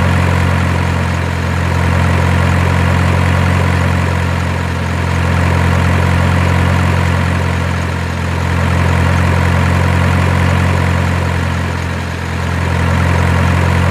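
Heavy truck engine idling steadily, a deep, even sound that swells and eases slightly every few seconds, laid over the picture as a sound effect.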